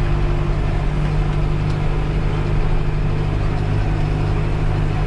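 Tractor diesel engine running steadily close by, a constant low even hum with no change in speed.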